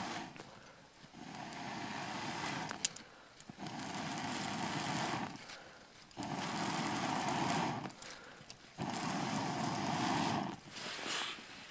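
Four evenly paced bursts of rushing, airy noise, each about two seconds long with short pauses between, and a single sharp click about three seconds in.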